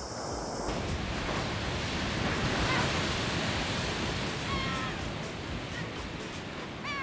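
Surf washing and breaking over rocks along the shore, a steady rushing noise. A few short high bird calls come through it about halfway in and again near the end.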